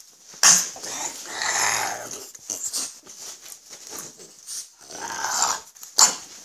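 Two French bulldogs, an adult and a puppy, growling at each other in play, in short irregular bursts with two sharp louder bursts, about half a second in and near the end.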